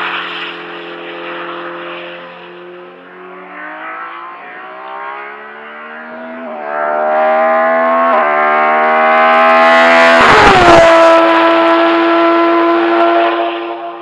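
Race car engine accelerating hard on track, with two upshifts heard as quick drops in pitch. It gets louder as it approaches and passes close by with a sharp drop in pitch, then fades away as it drives off.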